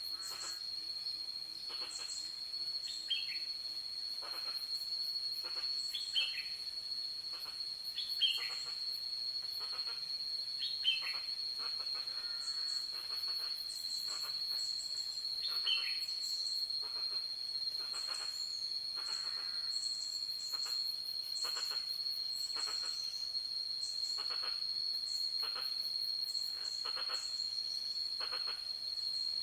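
Natural jungle ambience: an insect, cricket-like, holds one steady high-pitched drone, while birds call over it with five loud short notes that each slide downward and many brief high chirps.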